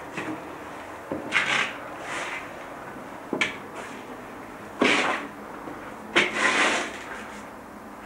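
Irregular knocks and thumps, each followed by a brief rustle or scrape, about five in all. The loudest come about five and six seconds in.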